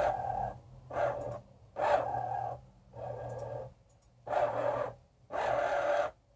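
Excalibur Phantom Force chess computer's motorized magnet arm under the board whirring in about six short runs with brief pauses between, as it slides a knight from square to square.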